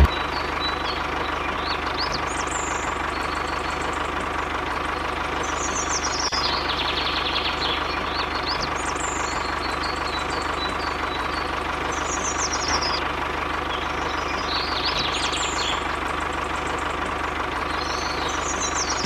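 Small electric motor of a DIY mini tractor model running with a steady hum. Birds chirp in short calls every few seconds over it.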